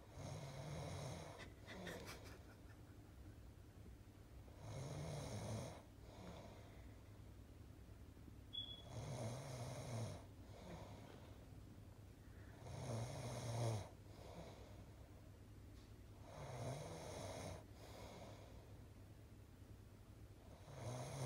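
A man snoring in his sleep, one snore about every four seconds.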